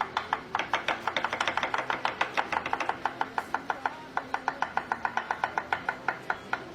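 Kitchen knife rapidly chopping an onion on a cutting board, a fast steady run of sharp strokes about seven or eight a second.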